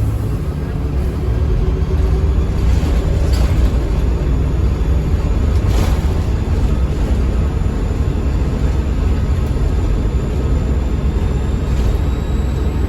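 Bus diesel engine and ZF automatic driveline running steadily under way, a continuous low drone. A faint high turbo whistle sits over it and rises slightly in pitch near the end.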